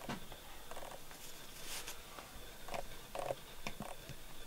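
Faint, scattered soft clicks and brief rustles of close, small-scale handling over quiet room tone.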